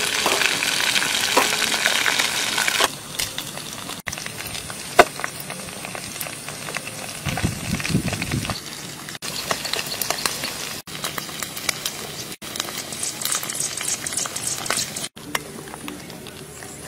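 Battered chicken legs deep-frying in a wok of hot oil, sizzling and crackling, with small clicks of metal tongs as the pieces are lifted out. Louder for the first three seconds, then quieter, with a brief low rumble about halfway.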